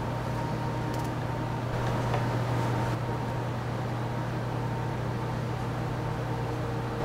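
A steady low hum with an even hiss, unchanging throughout.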